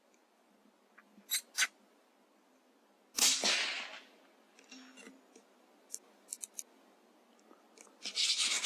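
A single shot from a CZ 457 bolt-action rifle in .17 HMR about three seconds in, sudden and dying away over about a second. A few small clicks come before and after it.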